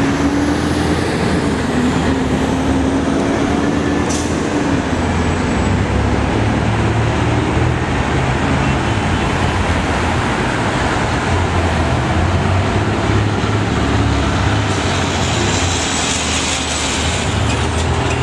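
Steady heavy road traffic: the engines of passing cars and trucks make a continuous rumble. An engine note wavers in the first few seconds, and a hiss rises near the end.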